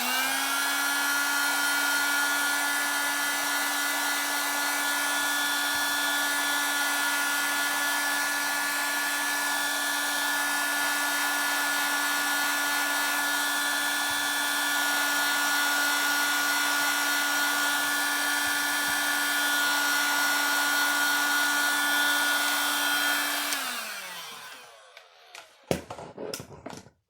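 Heat gun running while it heats the watch's rear glass: its fan spins up with a rising pitch at the start, holds a steady hum and hiss for over twenty seconds, then winds down with a falling pitch. A few light clicks follow near the end.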